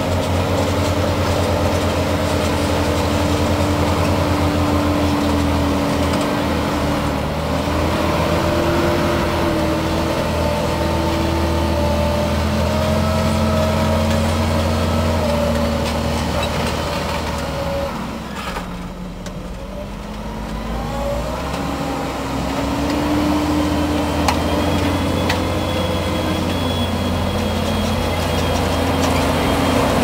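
Fendt 724 Vario tractor's diesel engine working under load while pulling a plough, its note rising and falling in pitch several times. The sound drops away briefly about two-thirds of the way through, then comes back up.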